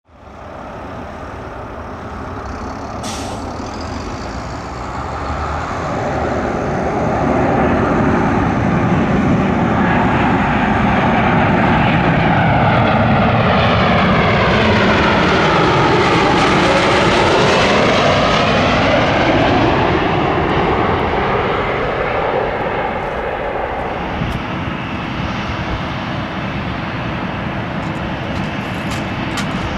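Boeing 737-800 jet engines passing close by on arrival: the sound builds to a loud peak, sweeps down in pitch as the airliner passes, then eases to a steadier, lower running sound.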